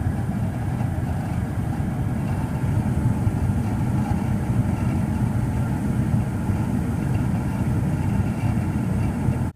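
1991 Day & Night 80% gas furnace firing, with the burners lit and the indoor blower running: a loud, steady low rumble of flame and moving air. The flame is being stirred up by the blower, which the technician takes for a sign of a cracked heat exchanger. The sound cuts off suddenly at the end.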